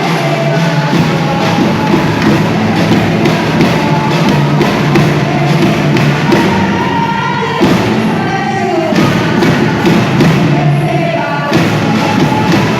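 Percussion band playing: drums beating a dense, steady rhythm with a melody carried over them.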